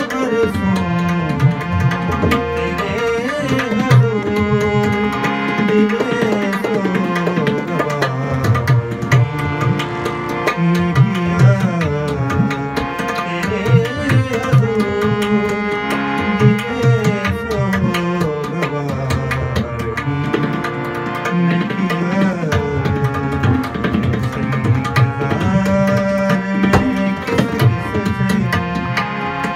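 Tabla played in a continuous rhythmic accompaniment with a harmonium sounding sustained chords and melody, in a live ghazal performance.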